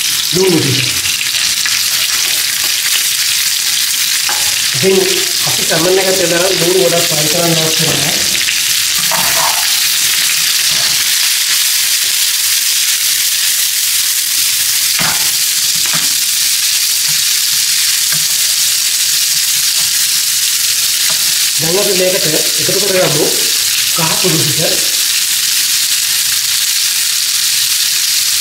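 Sliced red onions, curry leaves and garlic frying in hot oil in a pan, a steady sizzle, while a spatula stirs and scrapes them about; two sharp taps about halfway through.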